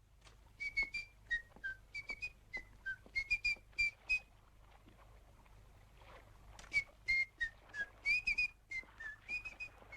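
A man whistling a tune to himself in short, clear notes: one quick phrase, a pause of about two seconds, then a second phrase.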